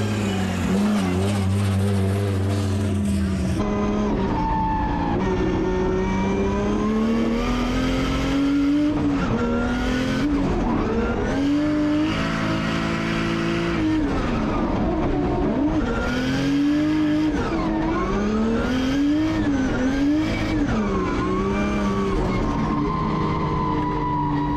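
Nissan S15 drift car's 2JZ straight-six running under load, its note climbing and dropping again and again as the throttle is worked and gears change, heard from inside the cabin.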